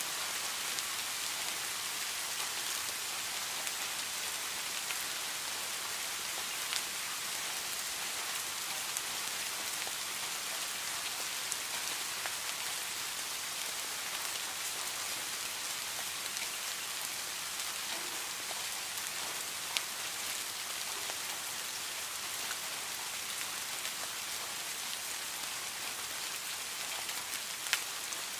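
Steady rain falling on leaves and plants: an even hiss with a few sharper single drop hits now and then, the loudest near the end.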